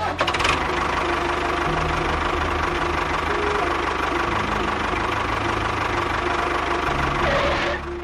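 Tractor engine running with a dense, knocking clatter, starting with a rapid run of clicks and holding steady until it fades out near the end.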